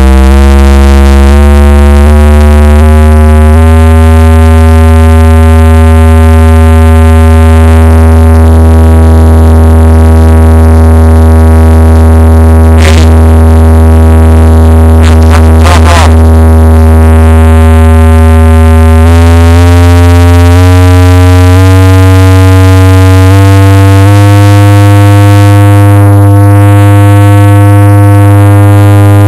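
Seismic Audio New Madrid 18-inch subwoofer in a ported box playing very loud single-frequency test tones that step up in pitch every second or so, hold one steady tone for about fifteen seconds, then step up again several times. The tone is thick with distortion overtones, and a few sharp clicks come in the middle.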